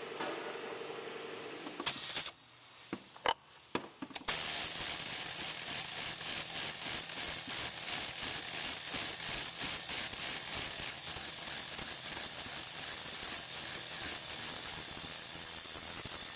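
A few clicks and knocks, then a power tool running steadily with a fast rattling hammer for about thirteen seconds, backing out the engine-mount bolts.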